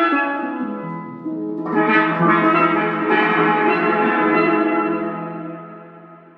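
Music: struck, bell-like pitched notes over a steady low held tone, with a new cluster of notes about two seconds in, then fading out toward the end.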